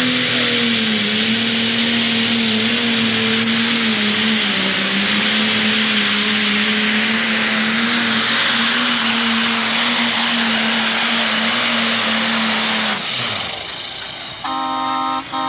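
International pro stock pulling tractor's single-turbocharged diesel engine running at full throttle under load as it drags the weight-transfer sled: a steady drone with a loud rush of noise. About 13 seconds in the throttle comes off and the sound falls away in pitch. Near the end a horn sounds twice in short blasts.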